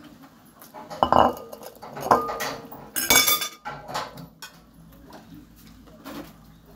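Metal fork clinking and scraping against a glass bowl: a few sharp clinks in the first seconds, one ringing briefly, a harsher burst about three seconds in, then lighter taps.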